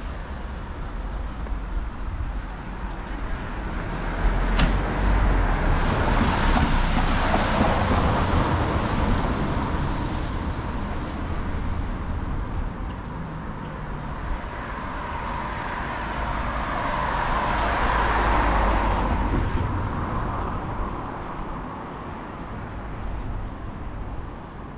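Cars driving past on the suspension bridge's road deck: tyre and engine noise swells up and fades twice, over a steady low rumble.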